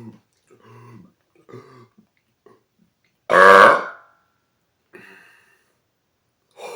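A man's single loud, forced burp about three seconds in, lasting well under a second, pushed out for a sound-level meter that reads about 126 dB.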